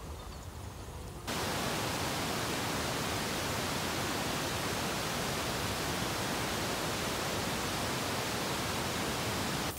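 A steady, even hiss like static that sets in abruptly about a second in and cuts off just as abruptly near the end, over a faint quiet background.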